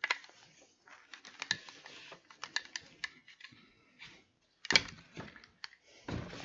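Light, irregular plastic clicks and rustles as Eyemuffs (clip-on earmuffs on safety glasses) are handled and fitted over the head, with a slightly louder cluster of clicks near the end.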